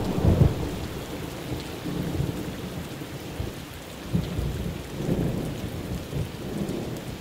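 Rain falling on puddles and wet mud, with thunder rumbling low, loudest in the first second and swelling again around four to five seconds in.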